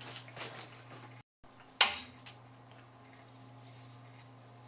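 Handling noises from fishing gear being picked up: soft rustles, then one sharp click about two seconds in and a couple of faint ticks, over a steady low electrical hum.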